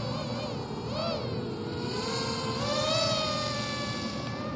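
DJI FPV drone's motors and propellers whining in freestyle flight, the pitch swinging up and down with the throttle. It swells briefly about a second in and climbs to its loudest around three seconds in.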